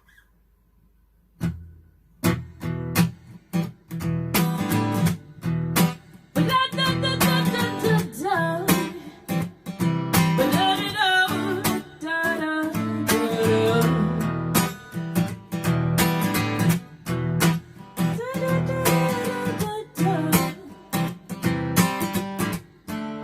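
Instrumental intro of a singer-songwriter's song on acoustic guitar, strummed in a steady rhythm. It starts about a second and a half in.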